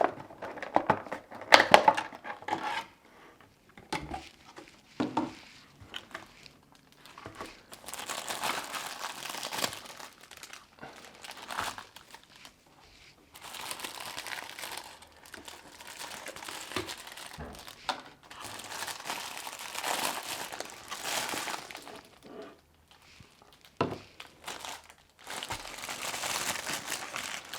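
Handling and opening a hard plastic fruit box: sharp clicks and knocks in the first few seconds, then repeated stretches of crinkling and rustling of plastic packaging, each lasting a few seconds.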